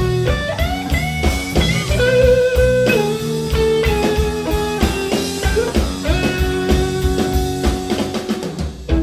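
Live blues-rock trio playing: a lead line on an electric guitar, with sustained and bent notes, over bass guitar and a drum kit.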